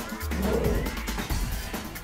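Background music with a steady beat and deep bass notes.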